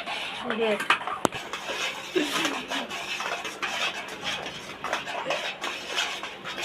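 A spoon scraping and clinking against a pot in quick, irregular strokes, stirring boiling sugar syrup.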